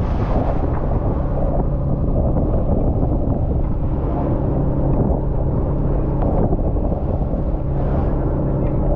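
Fishing boat's engine running steadily with a low hum, with wind buffeting the microphone.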